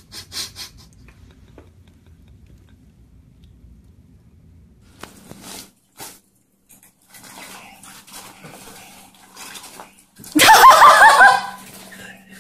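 Faint steady hum of a battery-powered cat toy running under its yellow fabric cover, with light rustling. Near the end comes a loud burst of a person's voice, about a second long, the loudest sound here.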